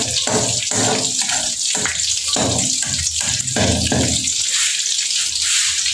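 An egg frying in hot oil in a pan: a steady loud sizzle with irregular spitting and crackling throughout.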